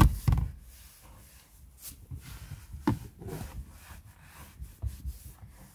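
Microfiber cloth wiping cleaner foam off a leather car seat: a couple of loud bumps right at the start, then soft rubbing and rustling with a few light knocks.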